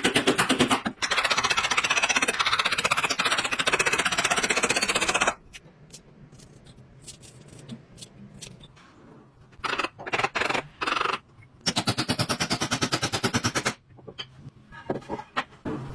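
A power tool used on wood, running in bursts with a fast rattle of many strokes a second. The first long run stops about five seconds in, there are a few short bursts later on, and a second run of about two seconds comes near the end.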